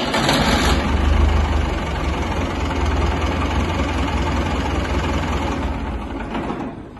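Tractor engine running loud and steady, with a heavy low rumble. It tapers off near the end.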